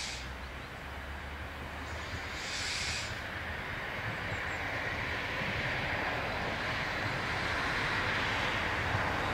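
DB Class 628.2 diesel multiple unit approaching, its running noise growing steadily louder. Two short bursts of hiss, each about a second long, come near the start and about two and a half seconds in.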